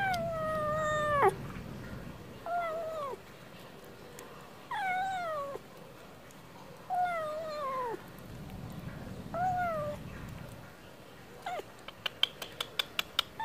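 Young stray tabby kitten meowing about six times, each call falling in pitch at its end, the first one long and the rest short. Near the end comes a rapid run of sharp clicks.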